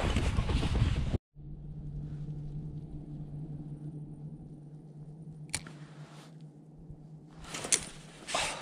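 A loud rushing noise that cuts off abruptly about a second in, then the steady low hum of an electric bow-mounted trolling motor. A sharp click comes about five and a half seconds in, and rustling with another click near the end.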